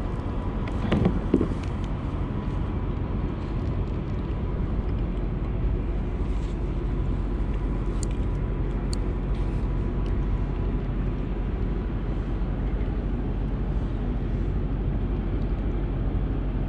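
Steady low rumble of wind buffeting the camera microphone, with a few faint clicks around the middle.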